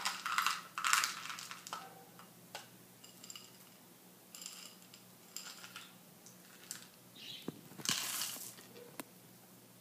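Semi-sweet chocolate chips rattling as they are poured out of their crinkly bag into a measuring cup, with scattered rustles and clicks. A louder pour about eight seconds in as the chips are tipped into a glass mixing bowl.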